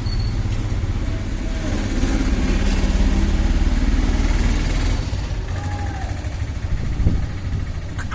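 A motor vehicle's engine running close by, growing louder about two seconds in and easing off after about five seconds, like a vehicle passing; a short knock near the end.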